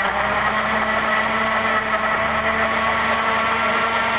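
Vicenza electric blender running at a steady speed, grinding garlic, shallots, ginger and ground spices with a little water into a wet spice paste.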